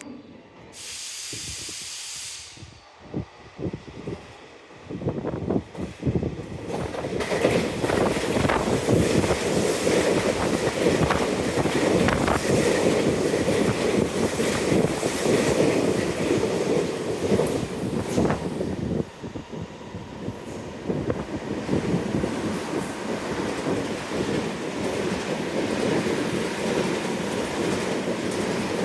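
Electric train on a Tobu line: wheels clicking over rail joints as it comes in, then a long continuous rush of wheels and running gear from about five seconds in. A brief high-pitched tone sounds about a second in.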